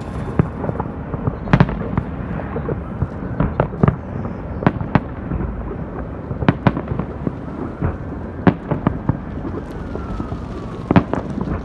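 Fireworks display: an irregular string of sharp bangs and booms from bursting aerial shells and rooftop launches, sometimes several in a second, over a steady low rumble.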